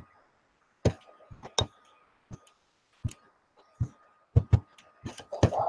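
About a dozen sharp clicks and taps at irregular intervals, coming closer together near the end, over a faint steady high tone.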